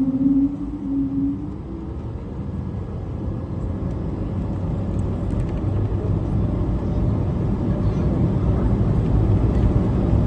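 Airbus A220-300's Pratt & Whitney geared turbofans as a low, steady jet rumble that grows gradually louder during takeoff.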